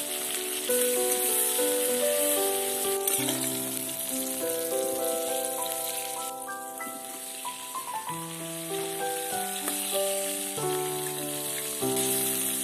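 Instrumental background music, a melody of sustained notes over changing chords, layered over a steady high sizzling hiss of pointed gourd pieces frying in oil in an iron wok.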